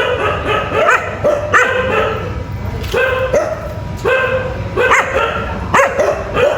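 An animal giving short pitched calls over and over, about one or two a second, some with a quick rise and fall in pitch, over a steady low rumble.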